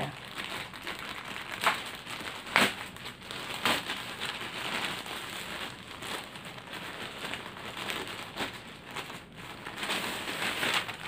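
Black plastic mailer bag crinkling and rustling as it is opened and clothes are pulled out of it, with three sharp crackles in the first four seconds.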